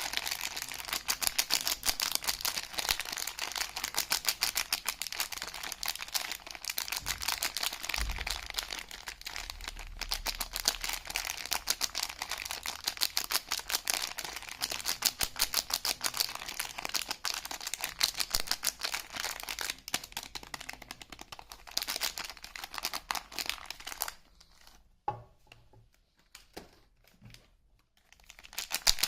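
Soap packaging being unwrapped by hand: dense, rapid crinkling and tearing of the wrapping. It stops near the end, leaving a few soft taps before the crinkling starts again.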